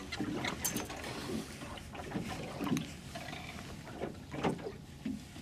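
Water lapping against the hull of a small drifting boat, with scattered light clicks and knocks from fishing tackle being handled at the rail.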